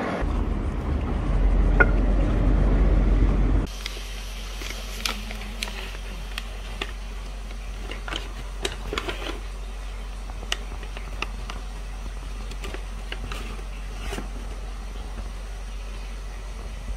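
A loud rumbling handling noise for the first few seconds. Then a paper bag crinkles and rustles in short, scattered crackles as a bath bomb is unwrapped from it, over a steady low hum.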